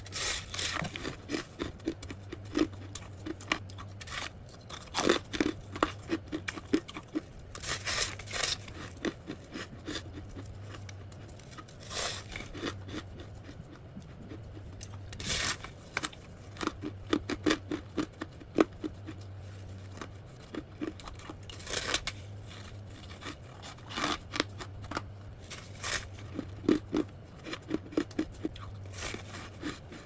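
Freezer frost being bitten and chewed: a crisp crunching bite every few seconds, each followed by a quick run of crunchy chews. A low steady hum runs underneath.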